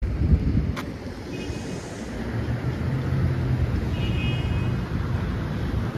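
City bus running, heard from inside the cabin: a steady low rumble of engine and road noise, with a brief knock just under a second in and a faint high whine twice.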